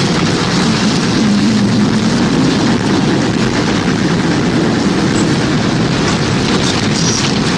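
Simulated tornado wind: a loud, steady, low, rumbling rush of wind that does not break.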